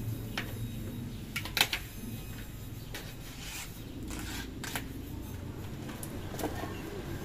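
A hand cutter snipping and a plastic seal strip being pulled and torn from the lid of a plastic paint pail: a few sharp snaps and clicks, the loudest about one and a half seconds in. A low steady hum runs underneath.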